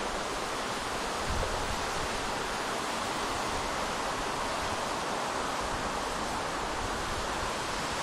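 Steady wash of city traffic noise with wind, an even rushing hum in which no single passing vehicle stands out.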